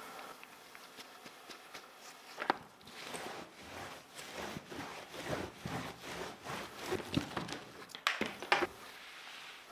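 Handling and scrubbing sounds while cleaning a Fuhlen L411 keyboard: from about two seconds in, a run of irregular rubbing strokes and light clicks, with a couple of sharper scrapes about eight seconds in.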